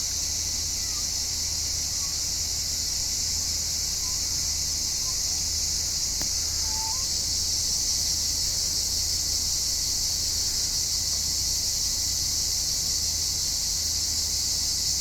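Steady high-pitched chorus of insects buzzing without pause, with a few faint, brief bird chirps scattered through it.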